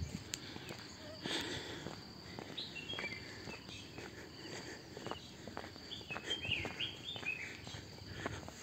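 Early-morning outdoor ambience: small birds chirping in short, scattered calls over a steady high insect drone, with footsteps on a dirt path.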